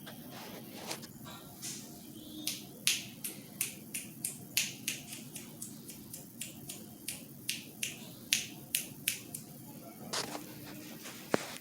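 Hampton Bay Antigua ceiling fan making sharp clicks over a low hum, about three clicks a second, with one sharp click near the end.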